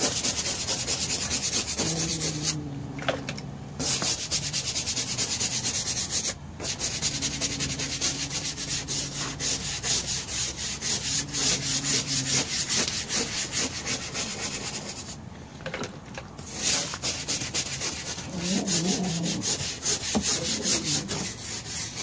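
A hand scrub brush scrubbing a vinyl golf-cart seat in fast back-and-forth strokes, stopping briefly a few times.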